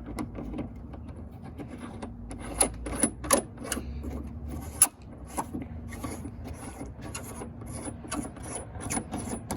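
Hand-tool work on a hood-pin mount in a carbon-fibre hood: a run of short, irregular scraping clicks, a few a second, over a low hum that stops about halfway through.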